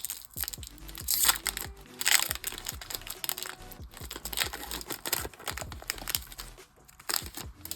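A foil trading-card pack being torn open, its wrapper crinkling in irregular crackly bursts, with faint background music underneath.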